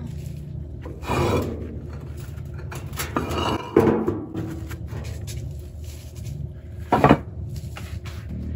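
Concrete pavers handled in a plastic wheelbarrow and set down on a stack: gritty scrapes of concrete on concrete near the start and in the middle, and a sharp clack about seven seconds in.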